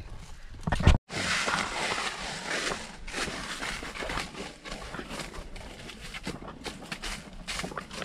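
Footsteps crunching and rustling through dry fallen leaves at a walking pace. The sound cuts out for a moment about a second in.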